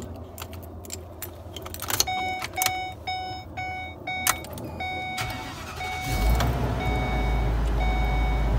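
A few clicks, then the RV's dashboard warning chime dings about twice a second with the key on. About six seconds in, the motorhome engine starts and settles into a steady idle under the fading chime.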